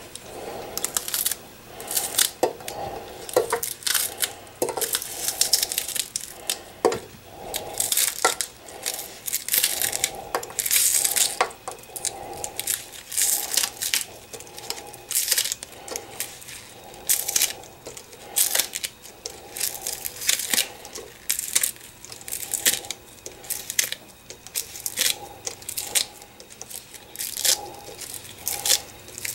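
Green onion stalks being cut into short pieces over a nonstick pan: a run of irregular, sharp crunchy snips, about one or two a second, with pieces dropping into the pan.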